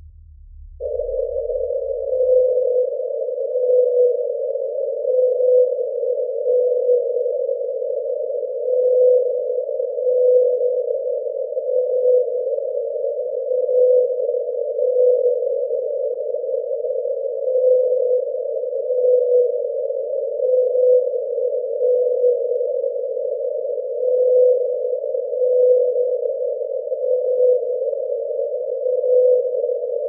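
Unidentified deep-ocean sound from an NOAA hydrophone recording, played back at ten times speed. A steady hiss carries short tones that repeat about every second and a half, starting about a second in.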